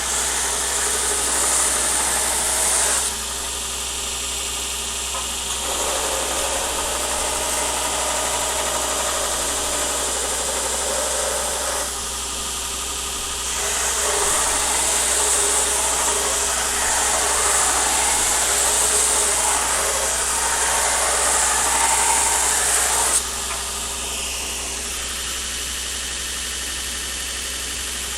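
Shop machinery running with a constant low hum, overlaid by loud stretches of hissing noise that start and stop suddenly several times.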